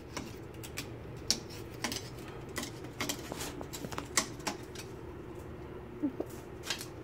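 Irregular crackles and ticks from a freshly lit kindling fire in the feed tube of a rocket mass heater, several a second and uneven in strength.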